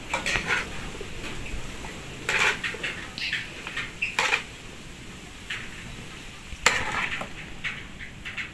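Metal cookware clinking and scraping: a metal pot and a metal serving tray knocking together as food is handled, a few sharp clinks with the loudest about two-thirds of the way through.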